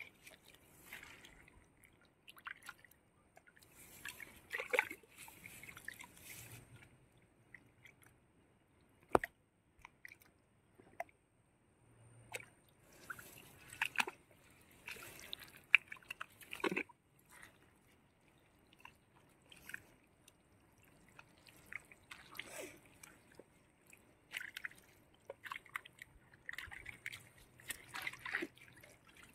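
Wet pond mud and water squelching and sloshing in irregular bursts as hands work through it, with a few sharp clicks.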